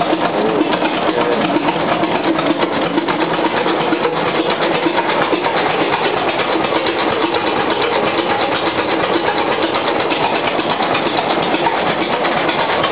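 1913 Aultman & Taylor 30-60 tractor's engine running steadily, a loud, even, rapid mechanical clatter.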